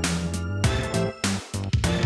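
A Samsung Galaxy S25 Ultra ringtone playing: a rhythmic tune with a bass line, pitched melody notes and regular percussion, dipping briefly about one and a half seconds in.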